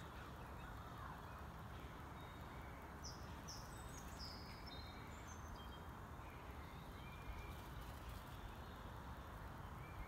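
Faint wild birds chirping: a quick run of short high chirps about three seconds in, then a few scattered fainter notes, over steady low background noise.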